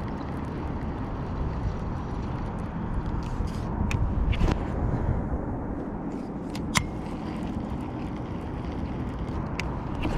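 Wind buffeting the microphone in a steady low rumble, with a few short sharp clicks around the middle.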